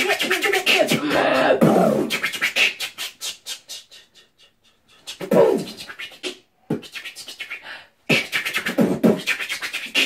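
Two beatboxers trading beatbox phrases back and forth in place of words: quick clicking mouth percussion mixed with short hummed, pitched vocal glides. The exchange pauses briefly about four seconds in and again near eight seconds, then picks up again.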